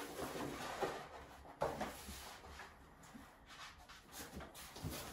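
Pasted lining paper rustling as hands slide and press it against the wall, with a sharper rustle about one and a half seconds in.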